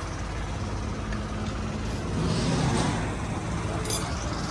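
Road traffic running steadily, with a vehicle going by louder about two seconds in, and a short click near the end.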